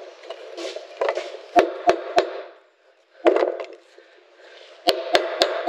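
Ball-pein hammer striking small copper nails into a wooden strip. There are three quick strikes about a second and a half in, one more a little after three seconds, then a faster run of strikes, about three a second, near the end.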